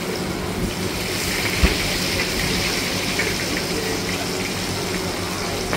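Shrimp cakes deep-frying in a wok of hot oil: a steady hissing sizzle that swells about a second in. A single sharp knock comes about a second and a half in.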